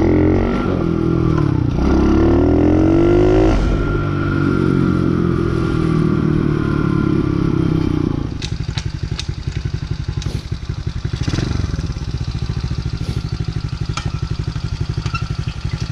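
Small Tao dirt bike's single-cylinder engine revving under way, its pitch rising and dropping back as it pulls through the gears. About eight seconds in it settles to a steady, even idle as the bike stops, running smoothly now that it has warmed up.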